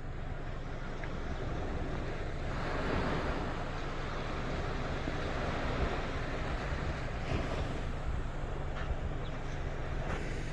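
Surf breaking and washing onto a sandy beach in a steady wash of noise, with a wave surging in about two and a half seconds in. Wind rumbles on the microphone underneath.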